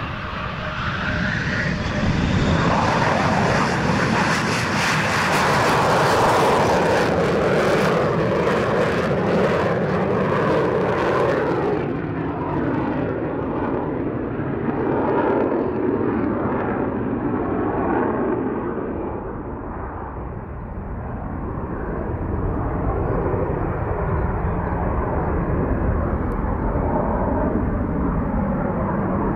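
Eurofighter Typhoon's twin EJ200 turbofan engines at high power as the jet lifts off from a touch-and-go and climbs away: loud jet noise with crackling through the first half. The hiss fades from about twelve seconds in as the aircraft draws away, while a steady low rumble carries on.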